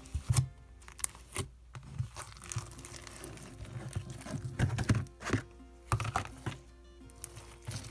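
Slime being squeezed and pressed by hand, giving off irregular crackling and popping clicks.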